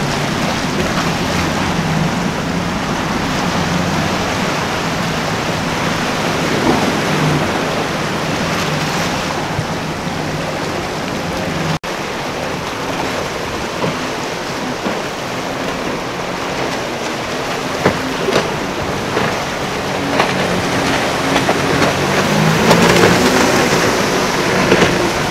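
Outboard-powered boats running at speed through choppy water: a low engine drone under a steady hiss of wind and rushing wake and spray. The sound drops out for an instant near the middle.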